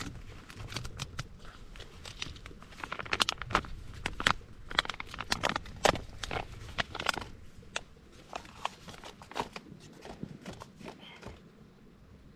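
Plastic food pouch being handled and torn open by hand: irregular crinkling and crackling, busiest in the middle and thinning out toward the end.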